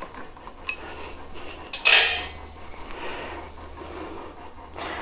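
Metal clinks and rattles as a key loosens a lathe's four-jaw chuck and an aluminium block is worked free of its jaws, with a louder clatter about two seconds in.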